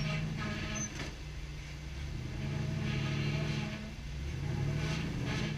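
Rock-crawler buggy's engine working under load as it climbs a near-vertical rock ledge. The revs swell up twice and ease off between pushes.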